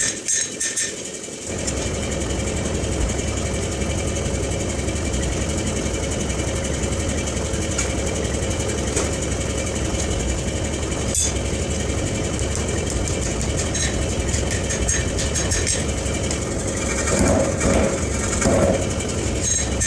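Forge-shop machinery running steadily, a constant motor drone. The level dips briefly about a second in, and rougher, uneven noise rises near the end.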